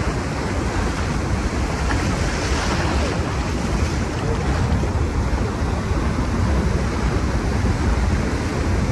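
Sea surf breaking and washing around in the shallows, a steady rushing of foaming water, with wind rumbling on the microphone.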